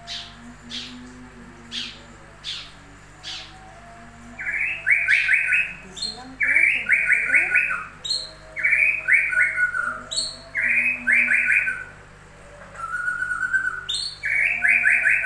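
A songbird singing. It starts with a few short falling whistles, then repeats a phrase every couple of seconds: a quick high downward sweep followed by a short rapid trill.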